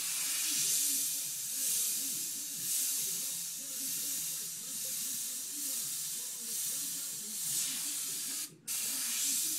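Airbrush spraying paint in a steady hiss of air that swells and eases with each stroke of the lettering. The sound drops out briefly about eight and a half seconds in.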